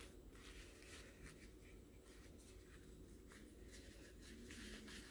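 Faint handling noise: soft rustling and scratching as a small cloth drawstring pouch is handled and its cords are pulled open.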